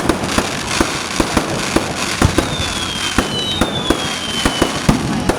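Fireworks going off in a dense, irregular barrage of bangs and crackle, several reports a second. From about two and a half seconds in, high whistles glide downward in pitch over it.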